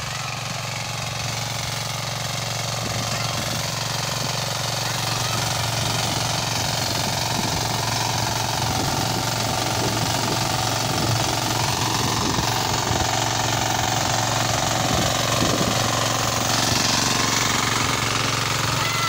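Walk-behind power tiller's small engine running steadily with a fast rhythmic chugging while its rotary tines dig through dry soil.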